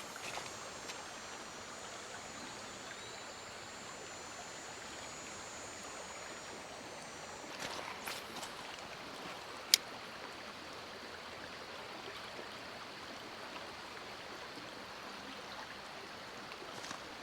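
Creek water running over rocks, a steady even rush. A faint high-pitched steady tone sits over it for the first seven seconds or so, and a single sharp click comes about ten seconds in.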